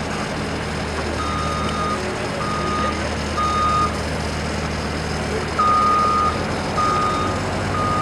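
Backup alarm of a compact diesel machine beeping about once a second while it reverses, with a short gap midway, over the steady hum of its engine.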